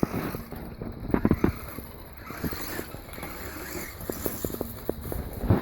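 HPI Savage Flux XS RC monster truck driving in short spurts. A faint hum from its brushless electric motor comes and goes, with irregular clicks and knocks from the truck bumping and rattling, loudest about a second in.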